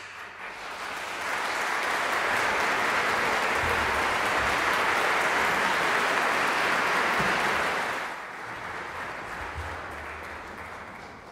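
Concert audience applauding: the clapping starts suddenly out of silence, builds over about a second, holds steady, then drops to a lower level about eight seconds in.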